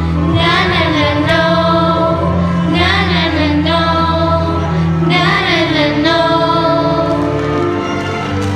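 Choir singing a slow passage. A lead voice sings three short, wavering phrases over held chords.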